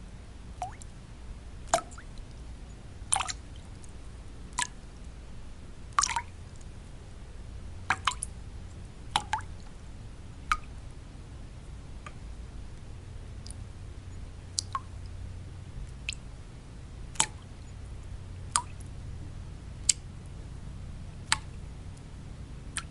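Water drops falling one at a time at irregular intervals, about one a second, each a sharp plop, over a steady low white-noise bed.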